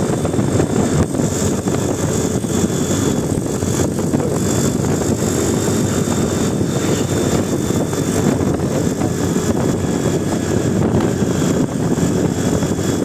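A bus engine running with a steady, loud rumbling noise; no horn sounds.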